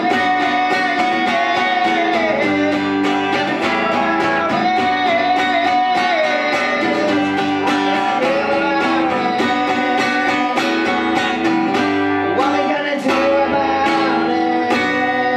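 Acoustic guitar strummed in a steady rhythm while a man sings the melody into a microphone, a live solo folk song performance.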